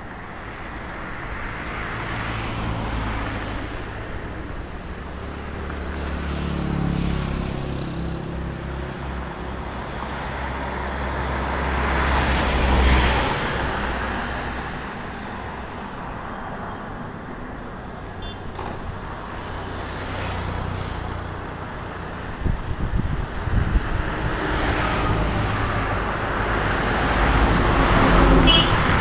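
Road traffic passing: engine and tyre noise swelling and fading several times, the loudest vehicle going by about 13 seconds in.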